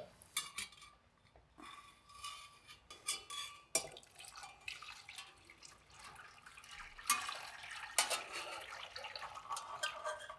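Chicken stock being poured from a stainless steel saucepan into a stockpot of roux and vegetables: a faint splashing pour that grows fuller about two thirds of the way through, with a few light clinks of the metal pans.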